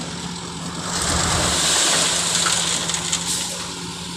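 A heavy vehicle's engine running steadily, with a broad rushing noise swelling about a second in and easing off toward the end.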